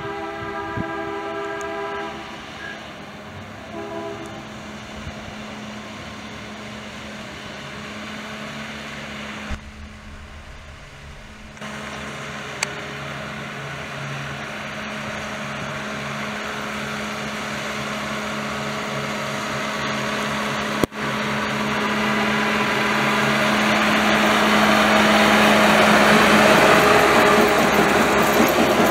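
A Norfolk Southern maintenance-of-way track machine sounds a multi-note horn for about two seconds, then gives a short toot about four seconds in. After that its engine runs with a steady hum on the rails, growing louder as the machine approaches and passes close near the end.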